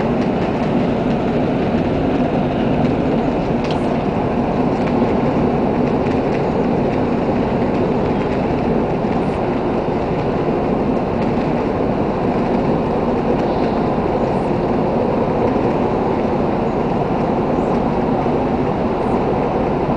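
The Polonia ferry's engines and propulsion running as a steady low rumble with a faint hum, as the ship manoeuvres slowly into its berth.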